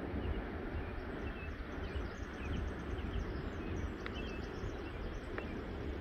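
Steady low rumble of ocean surf and wind, with small birds chirping faintly now and then in the trees.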